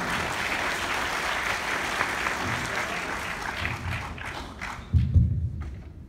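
Audience applauding, fading out after about five seconds, with a few low thumps near the end.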